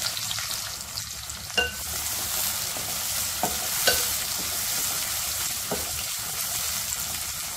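Sliced onions sizzling as they fry in hot oil in a metal pot, stirred with a wooden spatula that scrapes and knocks against the pot a few times.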